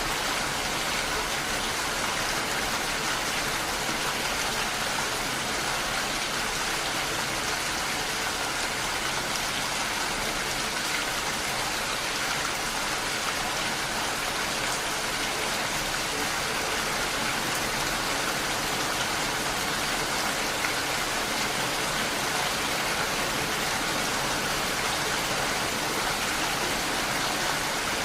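Steady rain with raindrops striking window glass, an even hiss that does not change.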